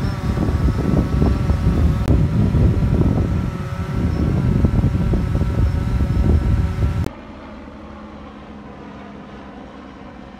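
Wind buffeting a phone microphone on an open beach, in heavy gusty rumbles, with a faint steady hum of several tones above it. About seven seconds in it cuts suddenly to a quieter, even wash of wind and surf.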